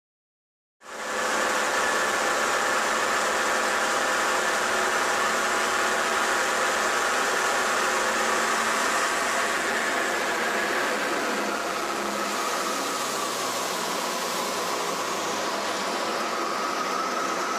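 A Tiger Moth biplane's de Havilland Gipsy Major four-cylinder engine running steadily in flight, heard from the open cockpit under heavy wind rush. It starts about a second in, and its note sags slightly about twelve seconds in.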